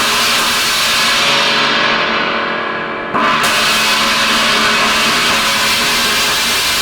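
Zildjian 18-inch A Custom China cymbal ringing with a loud, trashy wash after a strike, then struck again about three seconds in. Its crack has been repaired, and the cymbal now rings more freely.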